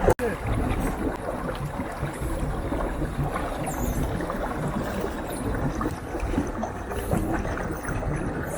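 River water lapping and gurgling against a small boat, a steady wash with no distinct strokes.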